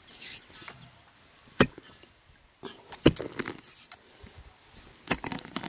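Heavy axe striking the matted, fibrous root mass of a giant grass clump: three sharp chops about a second and a half apart.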